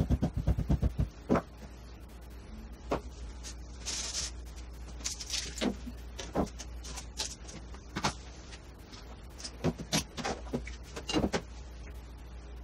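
Ball-peen hammer tapping rapidly on leather laid on a wooden workbench for about the first second, then scattered knocks and clicks as tools and a sword are set down and moved on the bench. The audio plays at four times normal speed, so the taps come very fast.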